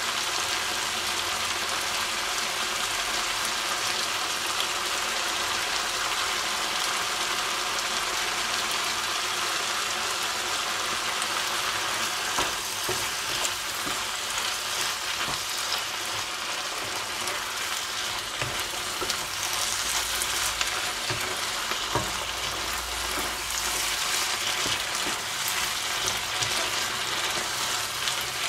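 Mixed vegetables frying in a nonstick wok pan with a steady sizzle, stirred with a wooden spatula that scrapes and knocks against the pan now and then, more often in the second half.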